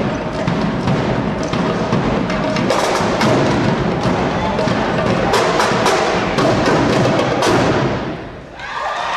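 A drill team drumline playing fast percussion, with sharp accented hits every so often. It stops about eight and a half seconds in, and crowd noise rises right after.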